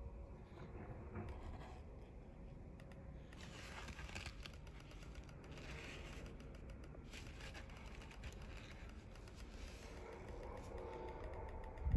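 Faint handling sounds: light scraping and rustling as metal tweezers lift small plastic parts and set them down on a paper towel, busiest in the middle of the stretch.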